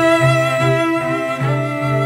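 Background music played on bowed strings, with low notes moving in short even steps under a held high note.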